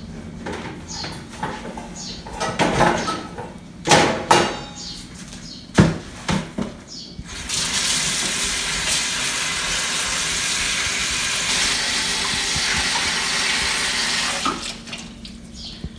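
A few sharp knocks and clatters of bowls in a stainless steel sink, then a kitchen tap running hard into the sink over garlic chives being rinsed by hand for about seven seconds, shut off near the end.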